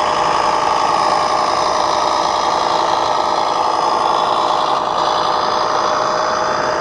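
A 1/14-scale RC model vehicle running with a steady, even engine-like drone.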